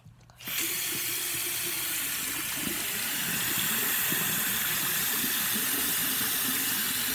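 Bathroom sink faucet turned on about half a second in, then water running steadily from the spout into the sink.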